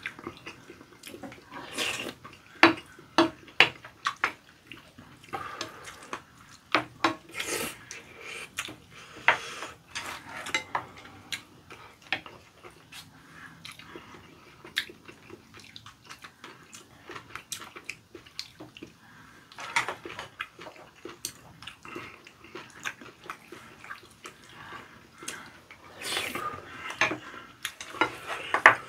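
Spoons clicking and scraping against ceramic bowls as two people eat curry rice, in irregular clusters of short taps.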